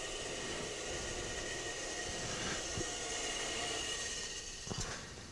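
Bench brake lathe running steadily with a differential case turning on its arbor, then falling away near the end as it is switched off, followed by a couple of light clicks.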